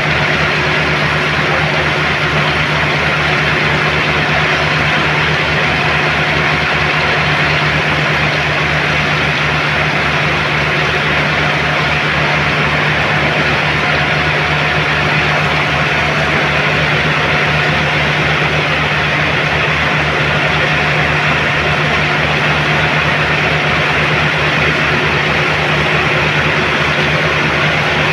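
A heavy engine running steadily at constant speed, with a low hum and a fast, even pulse underneath.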